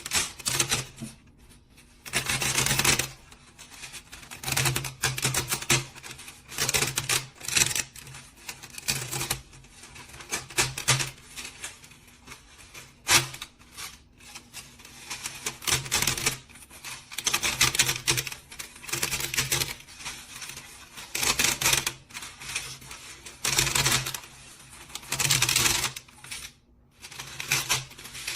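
A machine working in short, uneven bursts of rapid clattering, one every second or two, with a low hum during each burst.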